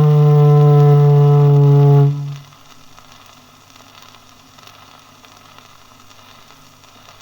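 Foghorn sounding one long, low, steady blast that stops about two seconds in, its pitch sagging slightly toward the end; a few seconds of faint hiss follow before the next blast.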